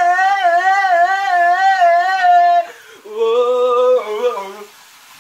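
A man singing loud, drawn-out notes with a wide warbling vibrato, mock-operatic: a long high note, a brief break about two and a half seconds in, then a lower held note that stops near the end. The voice echoes in a small tiled bathroom.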